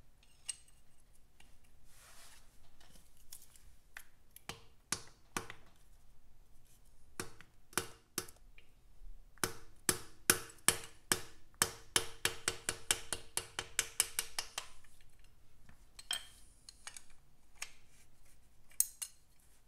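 Metal spanner clicking and clinking on the large hex oil-filter cap of a 1951 Vincent Rapide's crankcase as the cap is worked loose. The clicks are scattered at first, then come in a fast, even run with a faint ring for about five seconds from roughly halfway through, then a few more near the end.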